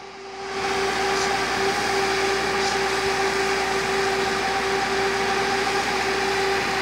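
Fire hose nozzle jetting water under pressure from a diesel-engine fire pump: a steady rushing hiss with a steady hum under it, building up over the first half second.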